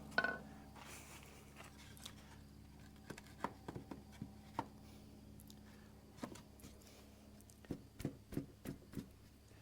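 Light, irregular knocks and clicks of wooden shutter boards being handled and fitted together, with a closer run of several taps near the end as the boards are knocked into line.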